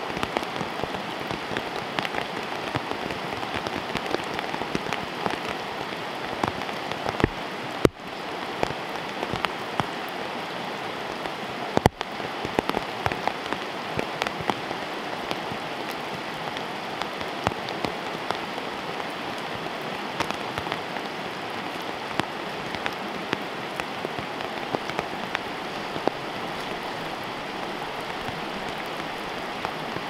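Steady rain falling, with many small drop ticks close by. The sound cuts out briefly twice in the first half.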